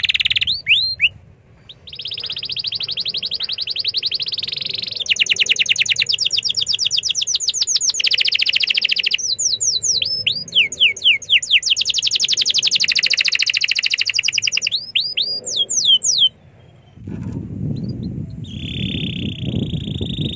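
Canary singing a long, fast song: rapid trills one after another, with falling whistled notes in between, and a short pause about a second in. Near the end the song breaks off, a low rumble comes in, and one more buzzing trill follows.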